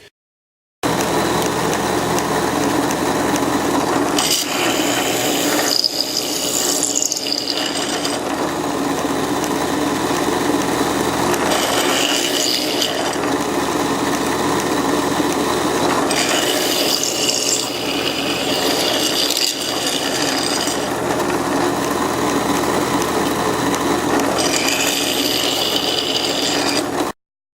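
Electric drill running steadily while boring holes into wooden pieces. Four times, a harsher, higher cutting noise rises over the motor as the bit bites into the wood.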